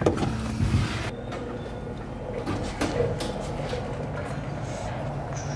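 A plastic push-clip pressed into a van's plastic fender liner: a couple of clicks and a scrape of plastic in the first second, then a steady low hum with a few faint clicks.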